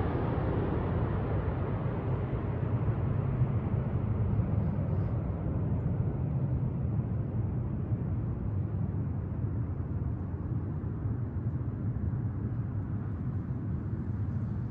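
Low rumble of a Boeing 777 jetliner receding after flying over, fading slowly as its higher hiss dies away and the deep roar lingers.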